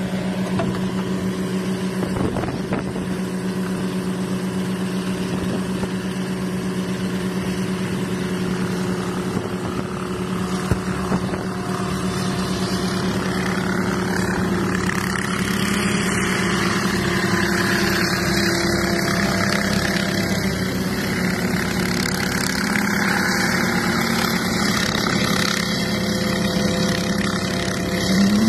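Robinson R44 helicopter running on the pad, its engine and rotors making a steady low hum as it lifts into a hover and moves off. From about halfway through, the sound spreads out and grows a little louder as the helicopter turns and climbs away.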